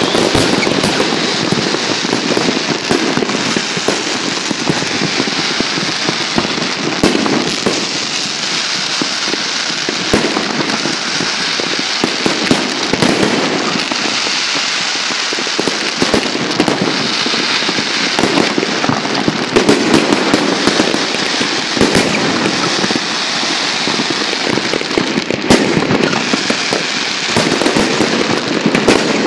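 Large fireworks display going off without pause: many shell bursts and crackles overlapping, with sharper bangs standing out now and then.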